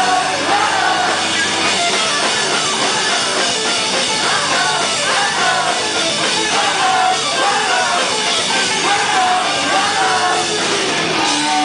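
A live rock band playing loudly with a lead singer, drums and guitars together. Shortly before the end the singing stops and a held note rings on.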